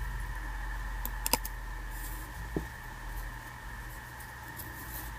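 Hands handling cotton bracelet threads and a plastic bottle strip: a few small clicks, the sharpest pair a little over a second in and another near two and a half seconds, over a steady faint hum.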